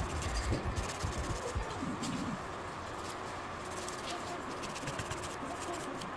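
Nail dust collector fan running with a steady whoosh, with soft low knocks of hands and a wooden cuticle stick against it in the first couple of seconds.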